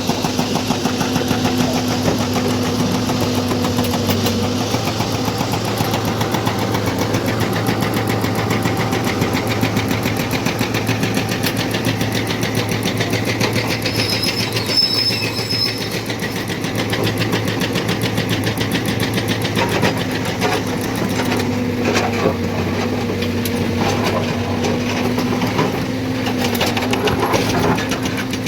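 A hydraulic excavator's diesel engine running steadily, with a few sharp knocks in the second half.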